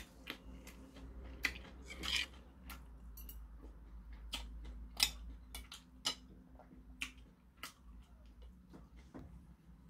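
Metal chopsticks clicking and scraping against a porcelain dish as slices of boiled pork are picked up: scattered sharp clicks at irregular intervals, one or two a second.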